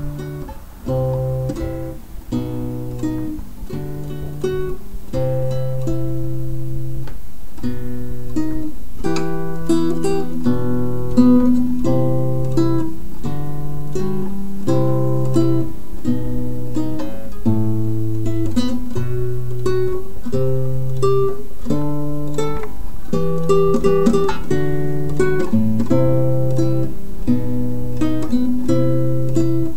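Acoustic guitar music with plucked notes over a repeating bass line, growing louder over the first several seconds and then steady.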